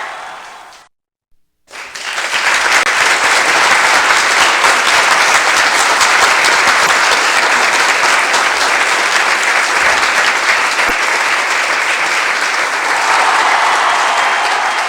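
A large crowd applauding and cheering. The clapping dies away, cuts to a second of silence about a second in, then swells back up loud and holds steady.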